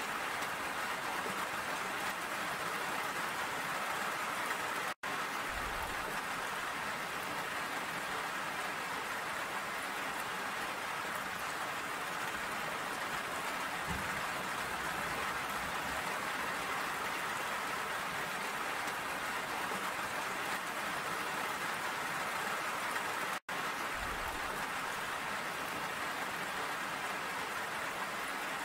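Steady rain falling, an even, continuous patter. The sound cuts out for an instant twice.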